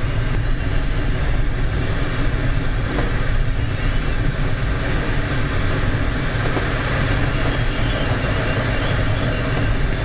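Steady rush of air inside a glider's cockpit while it is on aerotow, with a low, even drone that fits the tow plane's engine ahead.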